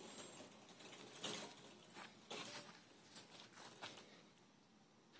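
Faint, scattered rustling as a person walks up through long grass close to the camera: a handful of soft swishes a second or so apart, dying away toward the end.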